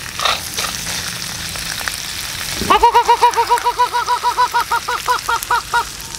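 Crab and prawns sizzling as they are stir-fried in a wok. About three seconds in, a chicken breaks into a rapid run of loud, short calls, about six a second, over the frying.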